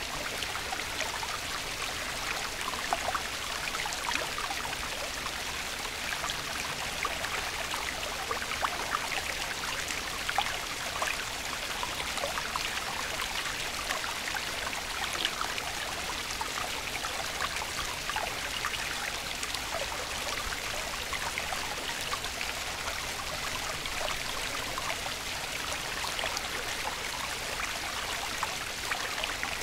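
Running water, like a stream: a steady rushing with many small splashes and trickles.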